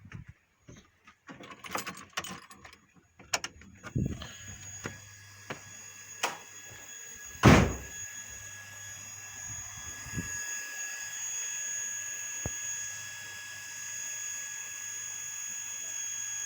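A run of knocks and clunks, then a small motor starts and runs with a steady whine. A single loud thump comes about halfway.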